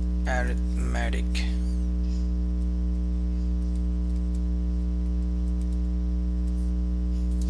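Steady electrical mains hum with a ladder of overtones, picked up in the recording, with a few faint clicks.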